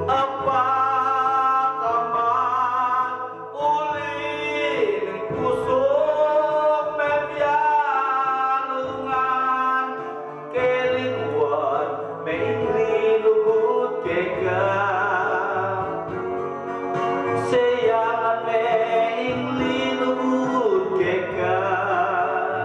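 A man singing a slow Kapampangan love ballad into a handheld microphone over backing music, his held notes wavering with vibrato.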